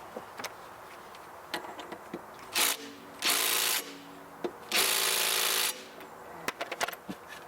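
DeWalt cordless impact driver with a 16 mm socket on an adapter, hammering at a lawnmower blade bolt in three trigger pulls: a brief one, then two longer ones of about a second each, with a few small clicks of handling between them.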